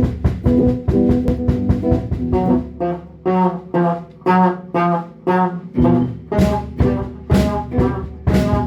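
Instrumental music with a steady beat: short pitched notes on a regular pulse of about two a second. The bass drops out for a few seconds midway and comes back about six seconds in.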